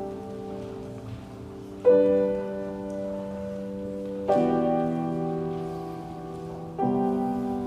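Piano playing slow, sustained chords: three new chords struck about two and a half seconds apart, each ringing and fading.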